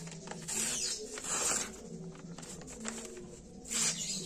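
Sharpness test: the steel edge of a hand-forged celurit sickle slicing through sheets of paper, three short papery swishes.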